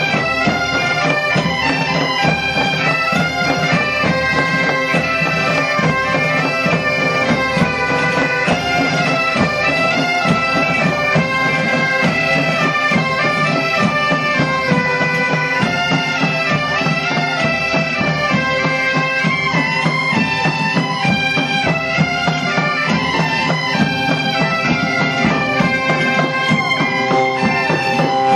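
A massed band of Galician bagpipes (gaitas) playing a tune together over steady drones, with drums beating along.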